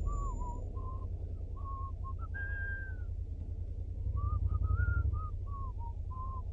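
A person whistling a tune in short, separate notes over the steady low drone of a Honda NC750X motorcycle's parallel-twin engine, which gets louder for about a second around four seconds in.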